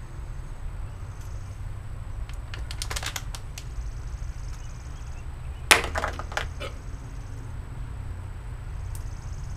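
A few light clicks, then one sharp crack followed by several quick rattling clicks, over a low steady rumble.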